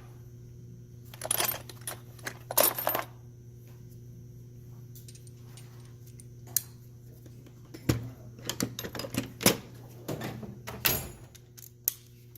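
Metal clinking and clattering of small tools or parts being handled, in two bursts: one about a second in and a longer run from about eight seconds in. A steady low electrical hum sits underneath.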